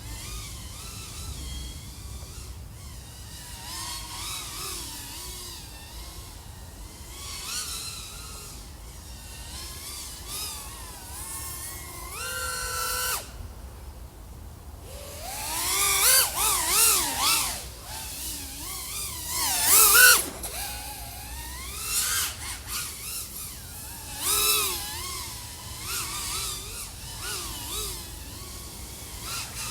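Brushless motors and propellers of a 3.5-inch FPV quadcopter (iFlight AOS 3.5 V5, XING 1504 3100KV motors) whining, the pitch rising and falling as the throttle changes. About 13 seconds in it briefly drops almost to nothing, then comes back with the loudest bursts of throttle around 16 and 20 seconds.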